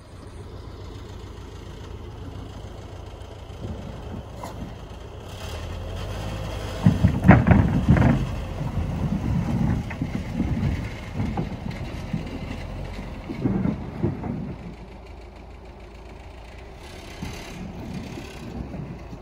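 An SUV engine runs steadily while it tows a wooden shed floor platform on a cable, dragging it over dirt. For several seconds, about a third of the way in, the platform scrapes and knocks loudly as it skids across the ground.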